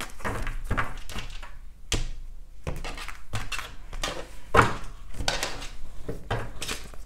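A deck of tarot cards being shuffled by hand, with a run of soft riffling rustles and the deck knocked against a tabletop several times. The loudest knock comes a little past halfway.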